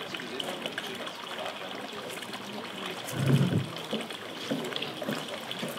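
Steady trickling of water, with a short low murmur about three seconds in.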